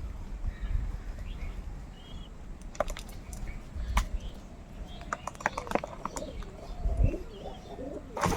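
Crows feeding: scattered sharp taps and clicks of beaks pecking at food, with faint bird calls in between.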